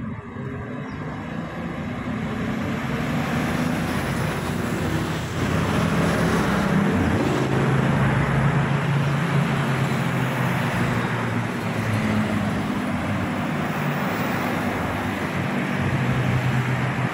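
Road traffic passing on a wet road in the rain: a steady hiss of tyres on wet tarmac under the low drone of vehicle engines, growing louder from about five seconds in.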